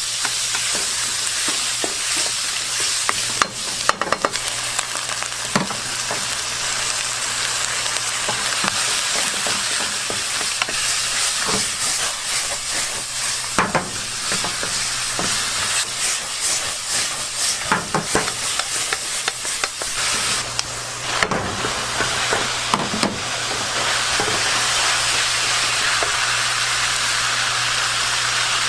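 Fried rice sizzling in a hot pan as it is stir-fried: a steady loud sizzle with scattered sharp clicks and scrapes of the stirring utensil.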